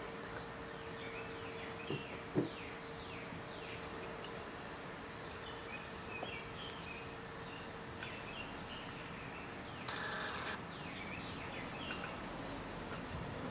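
Husqvarna Automower 450X robotic lawnmower running on grass, its electric motors giving a faint, steady hum, with birds chirping many short calls around it. A sharp knock comes about two seconds in.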